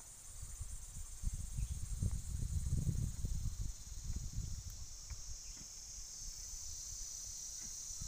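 A steady, high-pitched chorus of insects, with low, irregular rumbling buffets on the microphone that are loudest about two to three seconds in.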